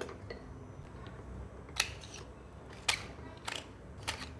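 Four sharp metallic clicks as a stainless steel push-button salt and pepper grinder is handled and pulled apart for filling.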